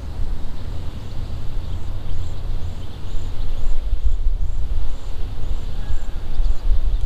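Wind buffeting the microphone: a heavy, uneven low rumble. Behind it, a faint high chirp repeats about twice a second.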